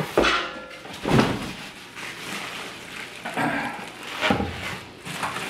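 Cardboard packaging scraping and plastic wrap crinkling as a stainless steel brewing kettle is lifted out of its box, with three knocks along the way.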